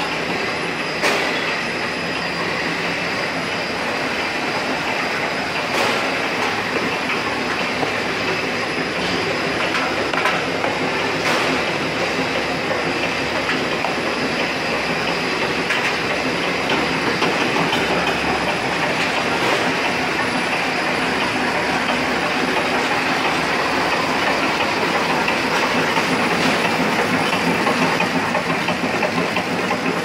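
Dishwasher tablet packing machine running: a steady mechanical clatter and hiss from its conveyors and wrapping section, with a few sharper clicks here and there.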